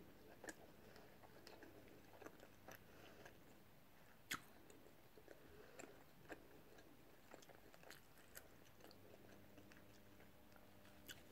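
Faint chewing and biting of food close to the microphone, with small scattered mouth clicks and one sharper click about four seconds in.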